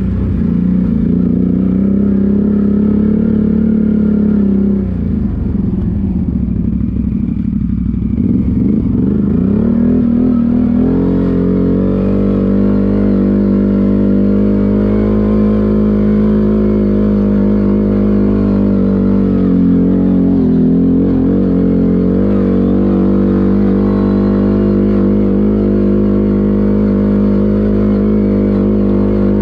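ATV engine running under load, its pitch dropping and wavering between about five and eleven seconds in, then holding steady, with a brief dip later on.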